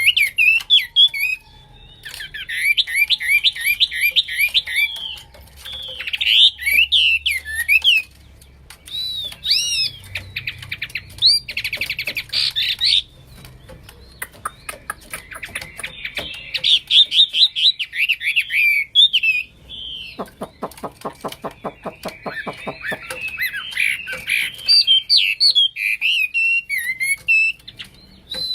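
Chinese hwamei (Garrulax canorus) in full song, singing loudly in varied phrases: runs of rapid repeated whistled notes and slurred rising and falling notes, broken by short pauses, with a fast rattling trill about two-thirds of the way through.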